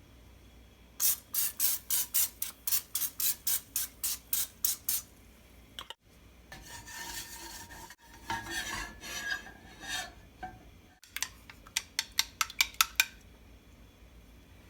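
Kitchen utensil work in short bursts: a run of quick, regular strokes at about four a second, then a stretch of stirring and scraping, then a faster run of strokes near the end.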